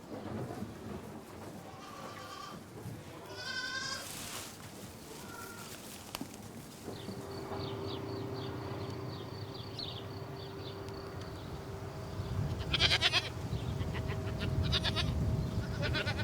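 Livestock bleating several times, with loud wavering bleats near the end. Under them runs a steady low hum and rumble, with a run of light, even ticking in the middle.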